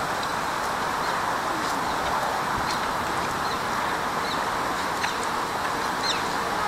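Steady outdoor background noise with a few short, high bird chirps now and then.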